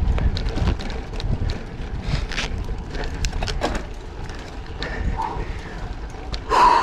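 Wind rumbling on the microphone of a moving bicycle, with tyre noise and scattered clicks and rattles from the bike. A brief louder sound comes near the end.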